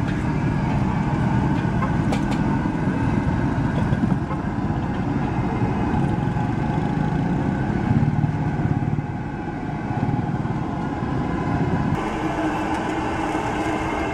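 Steady street traffic noise, the low drone of passing motor vehicles, with the background changing about twelve seconds in.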